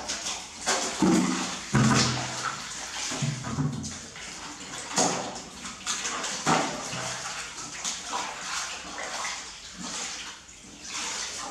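Water splashing and sloshing as laundry is scrubbed, swished and lifted by hand in a metal basin of soapy water, in irregular splashes throughout. A few short, low-pitched sounds come in the first few seconds.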